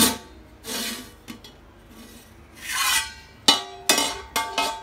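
Aluminium cooking pot being opened after dum cooking: a metal clank as the lid is lifted, scraping and rattling of metal against the rim, then a quick run of sharp metallic clinks with a short ringing tail near the end.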